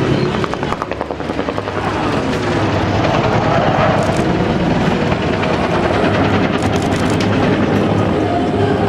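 Bell AH-1 Cobra helicopter flying aerobatics, its two-bladed main rotor chopping with a fast, even beat. The sound dips briefly about a second in, then grows louder again as it comes around.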